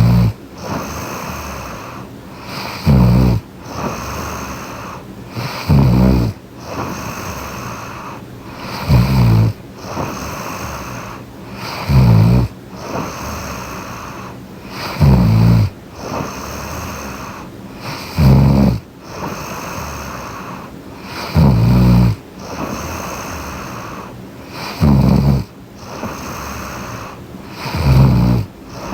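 A young woman snoring in her sleep close to the microphone: a loud, low snore about every three seconds, with softer breathing in between.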